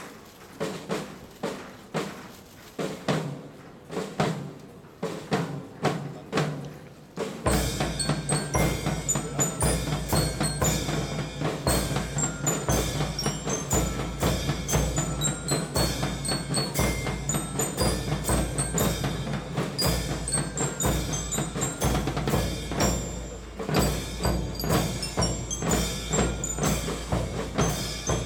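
Festival float music from the Dutch-ship float's percussion ensemble. For the first several seconds it is sparse single strikes. About seven seconds in the full ensemble starts, with a regular deep drum beat, gong and cymbal strokes, and a high bell-like melody.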